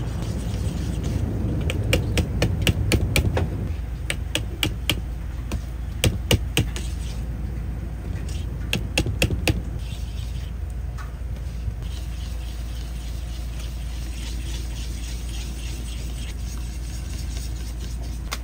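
Whisk or utensil clicking against a mixing bowl in quick runs of taps while egg, batter seasoning mix and milk are beaten into an egg wash; the clicking stops about halfway. A steady low hum runs underneath.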